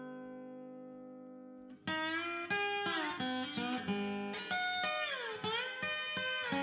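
Background guitar music. A held chord rings and fades, then a run of plucked notes starts about two seconds in, several of them sliding up or down in pitch.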